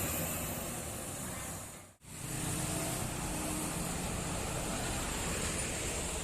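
Road traffic passing: steady engine and tyre noise, which cuts out briefly about two seconds in, then carries on.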